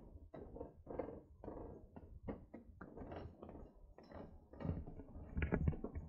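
Quick footsteps on a hiking trail, about three to four a second, over a low steady rumble.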